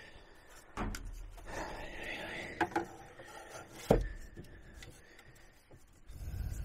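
Handling noise of a spirit level being set against a wooden cabinet opening: scattered knocks and rubbing. One sharp knock about four seconds in is the loudest.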